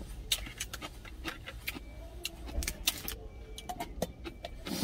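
Small stainless steel food container being handled, making many sharp metallic clicks and taps, with a louder click near the end as the lid is fitted on. A steady low rumble runs underneath.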